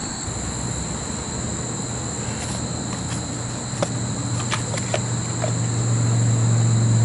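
Refrigeration condensing unit running with a steady low electrical hum that swells louder near the end, over a steady high insect trill. A few light clicks of handling come in the middle.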